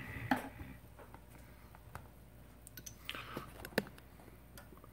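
Plastic pry tools and a smartphone being handled on a towel-covered bench: a few light clicks and taps, a short scrape a little after three seconds, and one sharper click just before four seconds.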